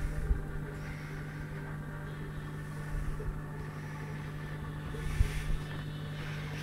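Steady low hum of aquarium pump equipment running, with a couple of brief low bumps near the start and about five seconds in.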